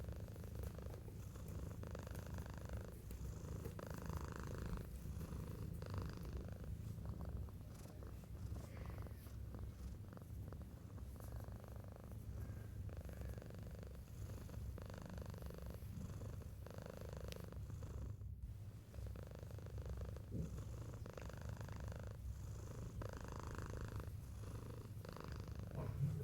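Domestic cat purring steadily, the purr swelling and fading with each breath in and out.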